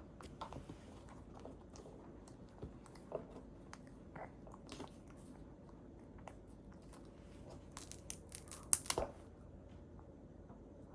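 A baby eating, faint small crunching and smacking clicks, with a brief louder cluster of crisp clicks about eight seconds in.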